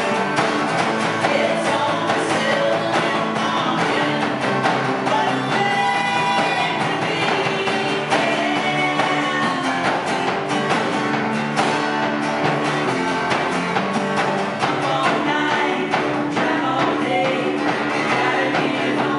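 Small band playing live: a woman singing a country-rock song over strummed acoustic guitar and electric guitar.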